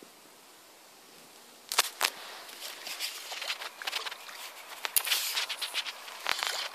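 Faint steady hiss, then from about two seconds in dense rustling and crackling with many sharp clicks, as the camera is handled and someone moves on a leaf-strewn bank. Two dull knocks come near the end.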